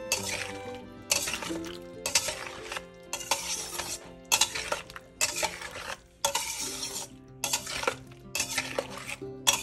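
A spatula stirring and scraping chunks of chili chicken, onion and capsicum around a stainless steel pan, in repeated strokes about once a second.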